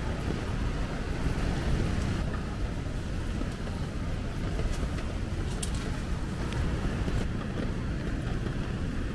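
Heavy typhoon rain with wind: a steady low rumble of wind and a hiss of rain, with a few faint clicks about halfway through.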